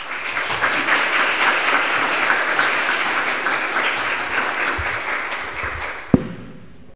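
Audience applauding steadily, then fading out near the end, with a single sharp thump about six seconds in.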